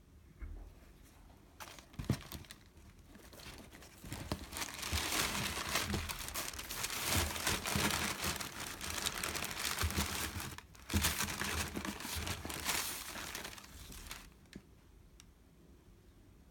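Tissue paper crinkling and rustling as a trainer is lifted out of its cardboard shoebox. A light knock comes first, then about ten seconds of continuous crinkling with a brief break partway through.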